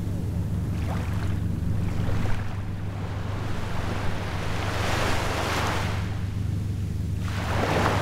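Small waves breaking and washing up a sandy beach, with a larger surge of foam about five seconds in and another near the end, over a steady low rumble.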